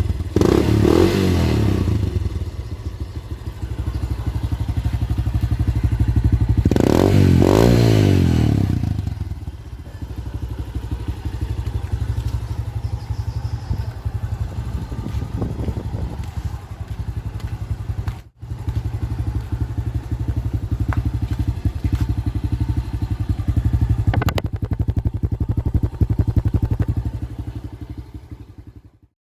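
Kawasaki Fury 125 two-stroke engine running through an open, gutted exhaust pipe. It is revved about a second in and again with a rising rev around seven seconds, then settles to a steady loud idle. The sound fades away near the end.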